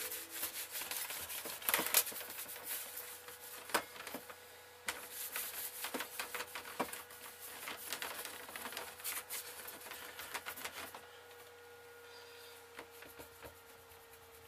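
A cloth rubbing and scrubbing across a painted board, with many small knocks and clicks as it is worked back and forth; the scrubbing dies down after about eleven seconds.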